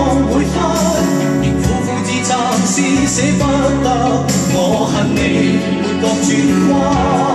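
Music: a 1990 Cantopop song playing back from a vinyl LP on a Technics direct-drive turntable.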